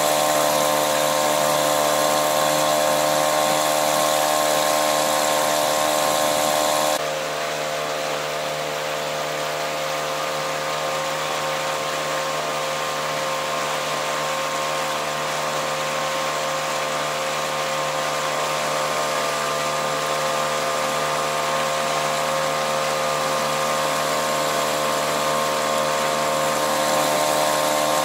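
Small Mercury 3.3 two-stroke outboard motor running steadily under way, a new motor being run in. About seven seconds in, the tone changes abruptly and the drone goes on slightly quieter.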